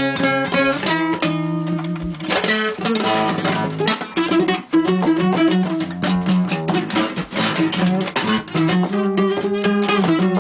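Five-string nylon-string acoustic guitar played solo in an improvisation, in a low alternate tuning near A: quick picked runs over ringing low notes.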